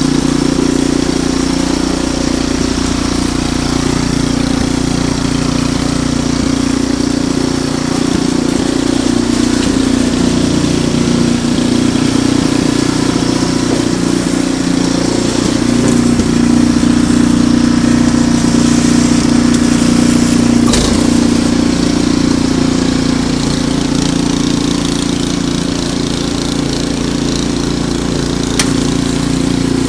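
Ariens Deluxe 28 snowblower engine running steadily, a little louder from about halfway, with one sharp knock about two-thirds of the way through.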